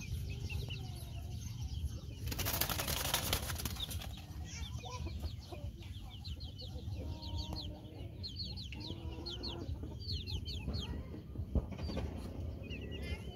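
Chickens in a coop: a burst of wing flapping about two seconds in, then soft hen clucks and many short, quick, falling high-pitched peeps.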